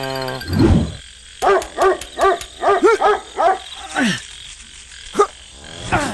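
Dubbed cartoon sound effects: a quick run of about six or seven short, high yapping calls like a small dog barking, with brief falling swoops before and after.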